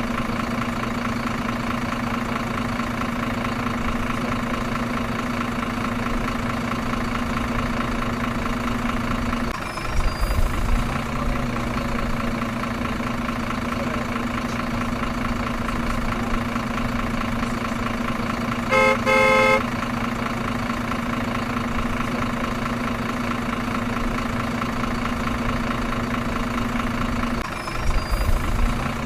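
Truck engine idling steadily, with one short, loud horn toot about two thirds of the way through. A rougher, lower rumble breaks in briefly about ten seconds in and again near the end.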